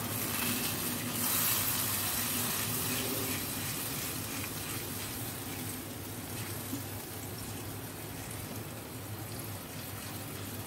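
Water poured into hot spiced chhana masala in a frying pan, hissing and sizzling, loudest in the first two seconds and settling into a steady sizzle.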